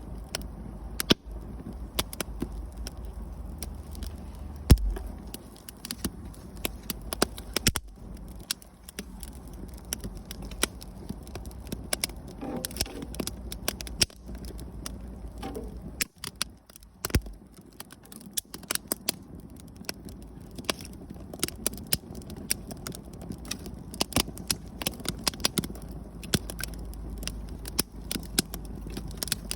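Wood campfire crackling: sharp, irregular pops and snaps throughout, over a low steady rumble.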